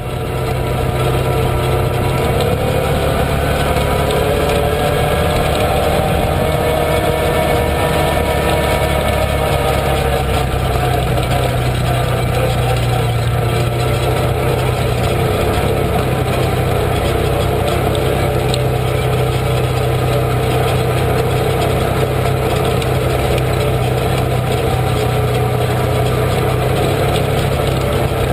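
Off-road vehicle engine running steadily while driving along a dirt trail. The engine pitch wavers a little in the first ten seconds, then holds steady.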